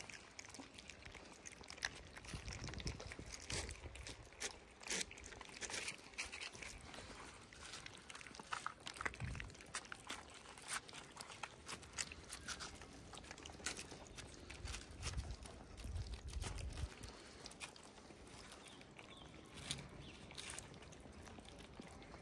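Several cats and kittens eating wet food and dry kibble from plastic trays at close range: irregular wet chewing, smacking and crunching of kibble, heard as many small clicks and ticks, with a few soft low bumps.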